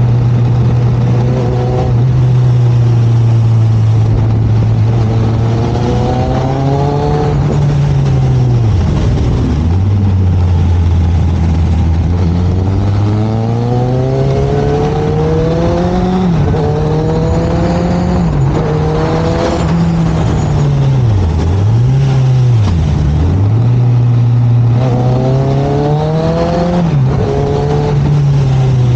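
Suzuki sport motorcycle engine accelerating and slowing through the gears. Its note rises in pitch again and again under throttle and falls away when the rider slows, dropping low twice in quick succession past the middle.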